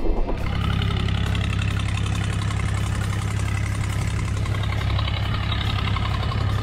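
Boat engine running at a steady pace, with water rushing and splashing along the hull.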